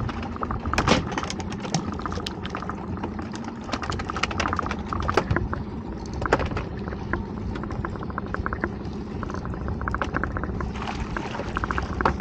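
Water slapping and splashing against the hull of a small open fishing boat, with many sharp clicks and knocks and a run of quick clicks in the last few seconds.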